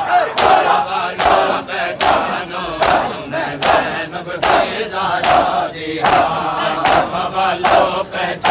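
A crowd of mourners beats their bare chests with open hands in unison (matam), giving sharp slaps about once a second. Many male voices chant loudly under the slaps.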